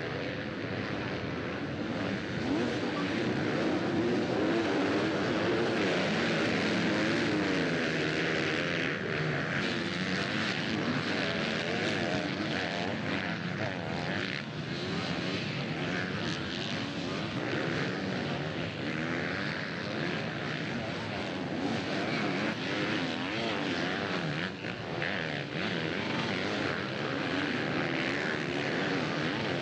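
A pack of motocross bikes racing, many engines revving up and down over one another.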